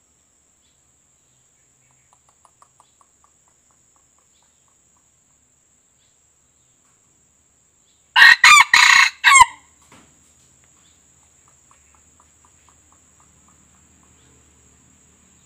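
A white-eared red junglefowl rooster crows once, about eight seconds in: a short crow broken into four clipped notes lasting about a second and a half. Faint rapid ticking calls come before and after it, over a faint steady high-pitched tone.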